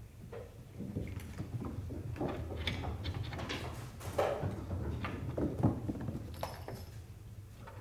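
Several Norwegian Forest Cats moving about on a hard tiled floor: scattered soft taps and knocks over a low steady room hum.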